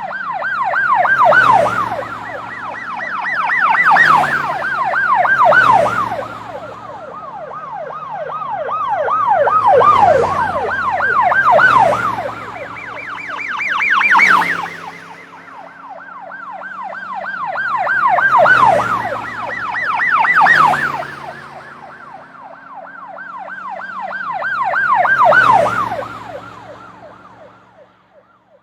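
Police car sirens in a fast yelp, sweeping up and down several times a second, with vehicle engines underneath. The sound swells loud and fades again and again, then dies away near the end.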